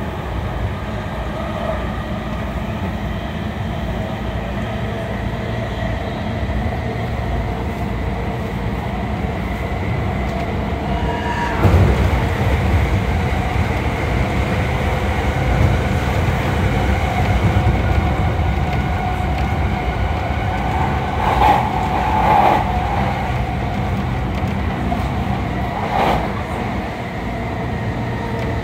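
Interior running sound of a JR E217 series electric multiple unit at speed: a continuous rumble of wheels on rail with steady tones held throughout. There is a heavy low thud about twelve seconds in, and sharp knocks from wheels crossing rail joints or points a little after twenty seconds and again a few seconds later.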